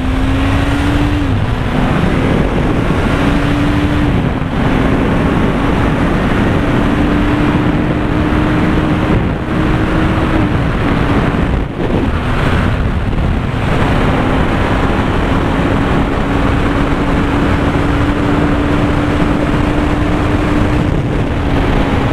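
Honda CBR 650 F's inline-four engine accelerating through the gears, with upshifts about one, four and ten seconds in. After the last shift it keeps pulling slowly higher, under a heavy rush of wind on the helmet microphone.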